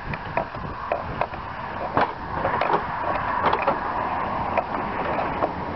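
Plastic side fairing panel of a BMW R1100RT rubbing and scraping as it is pressed into place over the tank, with many small clicks and knocks.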